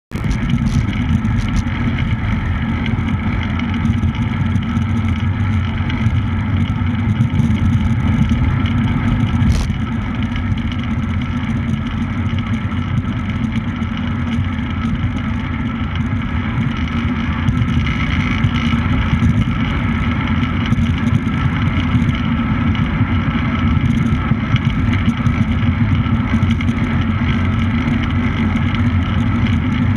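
Steady loud rumble and rush of a camera moving at speed round a velodrome track: wind on the microphone together with rolling noise.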